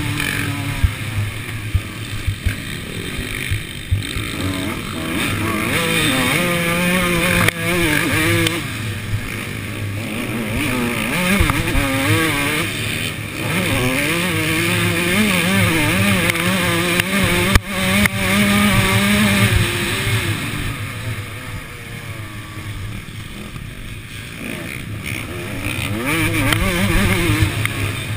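A two-stroke Suzuki RM motocross bike's engine, heard up close from the rider's helmet camera, revving up and down over and over as it accelerates and backs off. Past the middle the revs drop and it goes quieter for a few seconds, then it picks up again near the end.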